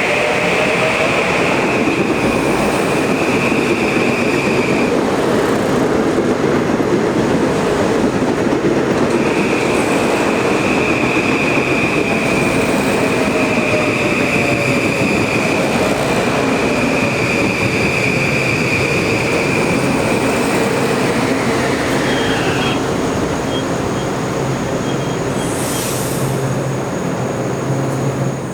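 A train running past at speed, a loud, steady rush of wheels on rail. Over it sits a high steady whine that drops out for a few seconds, comes back, and then slides down in pitch a little over twenty seconds in.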